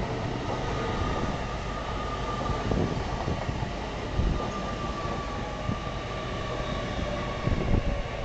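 LNER Azuma high-speed train rolling past along the platform as it arrives: a steady rumble of the carriages with a faint whine that sinks slightly in pitch as it slows.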